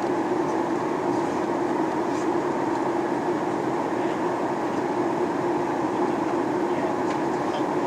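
Steady cabin noise of a Boeing 737-800 in flight: the drone of its engines and rushing air heard from inside the passenger cabin, even and unbroken.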